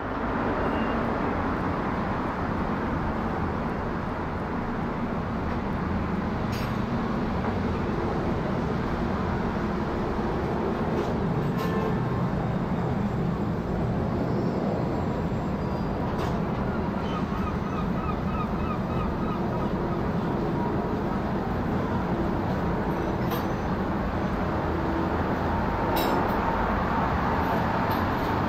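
Airbus A380 jet airliner passing overhead at a few thousand feet on its approach, heard as a steady, even rumble of distant jet engine noise.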